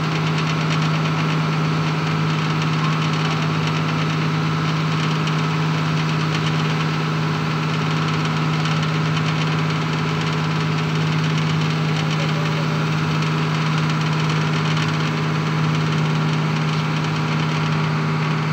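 Boat engine running at a steady speed: a constant, even-pitched drone with a knocking edge that does not change.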